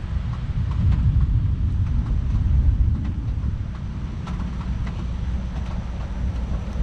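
Wind buffeting the microphone as a low, uneven rumble that swells in the first few seconds, with a few faint clicks.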